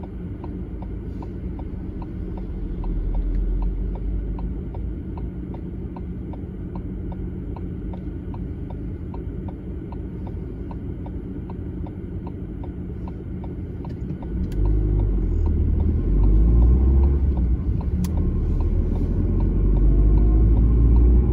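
A car's turn-signal indicator ticking steadily inside the cabin over the low hum of the engine at idle. About fourteen seconds in the car pulls away: the engine and road noise rise and cover the ticking.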